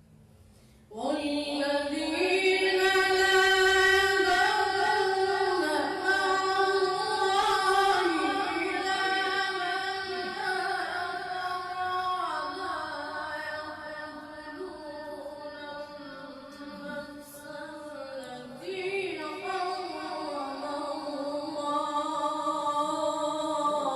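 A single voice reciting the Quran in a melodic chant. It starts about a second in, with long held notes that slide up and down.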